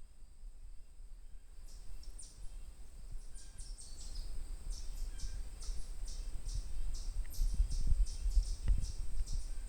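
Outdoor field recording with a low rumble on the microphone that grows louder. From about two seconds in come quick, short, high chirps, roughly three a second, and there is a single sharp click near the end.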